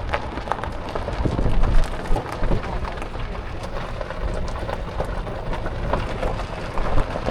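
Vehicle rolling along a road: a constant low rumble with many small crackles from the tyres and wind buffeting the microphone.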